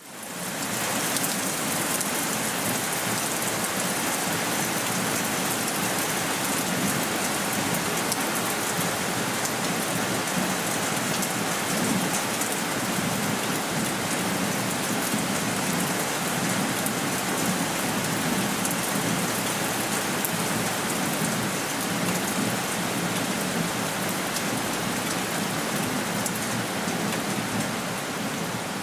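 Steady rain falling on a terrace, a dense hiss of countless drop ticks striking a wet wooden table and decking. It fades in during the first second, then holds steady.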